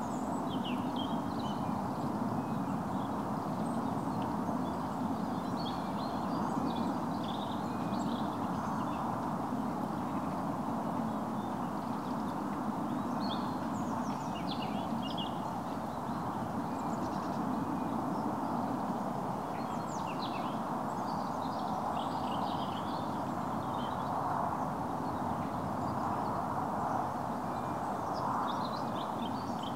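Shallow stream running steadily over weeds and stones, with small birds chirping briefly now and then.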